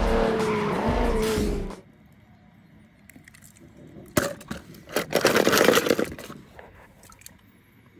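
Animated race-car soundtrack with engines revving over music, cutting off suddenly after about two seconds. Then a sharp click about four seconds in and a short clattering burst a second later: small die-cast toy cars knocking together in a plastic colander.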